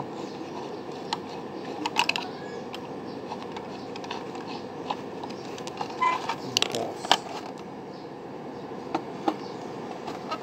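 Scattered light clicks and knocks of a blender's drive gear and a flat screwdriver being handled as the gear is turned to tighten and loosen it, the loudest knock about seven seconds in, over a steady background hiss.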